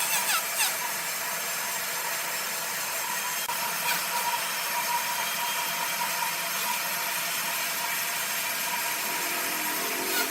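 Large sawmill saw cutting through a log: a steady cutting noise with a faint steady hum, and a few short squeals about half a second in.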